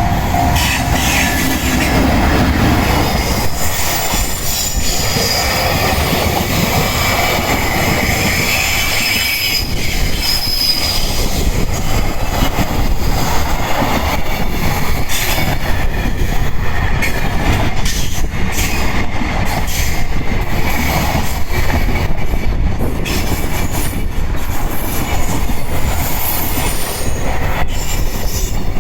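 Long freight train rolling steadily past a level crossing: wagon wheels rumbling and squealing on the rails, with sharp clicks over rail joints through the second half. A crossing bell dings briefly at the very start.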